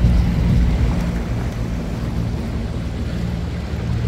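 Pontoon boat's outboard motor running steadily under way, a constant low engine note with wind noise on the microphone over it.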